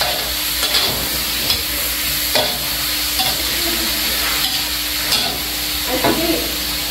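Food sizzling as it fries in a pan, with a spatula or spoon stirring and scraping against the pan about once a second.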